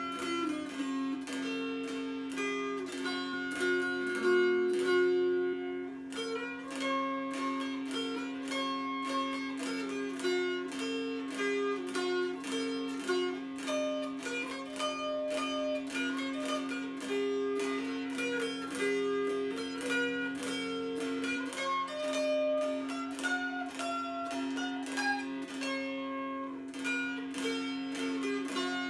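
All-cherry mountain dulcimer with a 27-inch scale, strummed: a tune played over a steady drone note.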